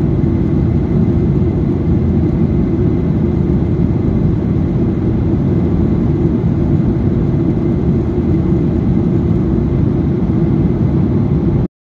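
Steady low rumble of engine and airflow noise inside a jet airliner's cabin in flight. It cuts off abruptly near the end.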